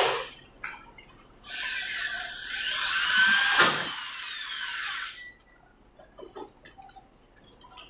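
Power drill running for about four seconds, its pitch sweeping up and down, as used to drill or drive screws in a ceiling repair. A sharp knock comes just before it.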